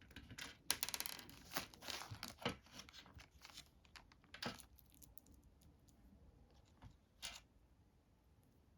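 Hard plastic Mastermind code pegs clicking and scraping as they are handled and pushed into the plastic game board: a run of small clicks and rasps in the first few seconds, then a couple of single clicks.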